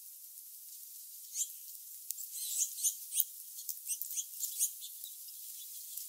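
Small songbirds chirping: a quick string of short, high calls from about a second and a half in until nearly five seconds, over a steady high hiss.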